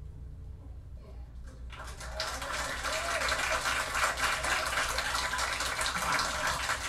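A live jazz recording playing over hi-fi speakers: the last low notes of the song die away, and about two seconds in the recorded audience breaks into applause that carries on.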